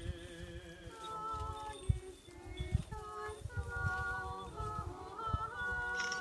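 Orthodox church choir singing a cappella: held chords that change every second or so, with low rumbling noise underneath.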